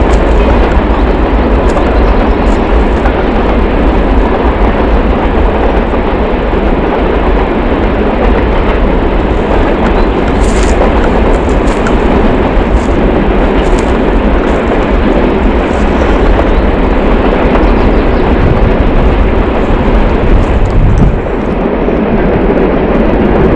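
Train passing about a kilometre away, a steady loud rumbling noise with no let-up.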